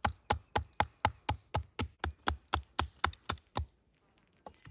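A wooden baton knocking on the spine of a knife, about four strikes a second, driving the blade down to split a maple branch lengthwise. The strikes stop about three and a half seconds in, with one faint knock near the end.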